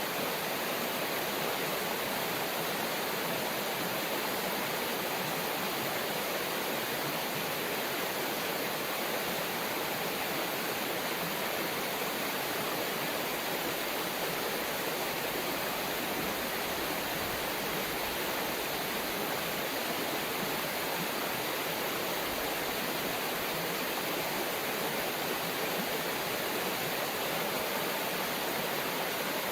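River water running over rocks: a steady, unbroken rushing with no other sound on top.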